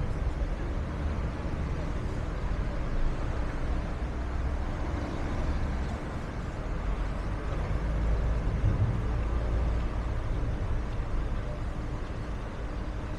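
Busy city street traffic: a steady low rumble of passing buses and vans, swelling about two-thirds of the way through.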